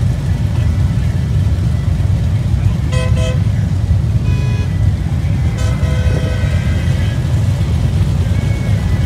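Low, steady rumble of motorcycle engines idling, with vehicle horns honking three times: two short toots and then a longer honk of about a second and a half.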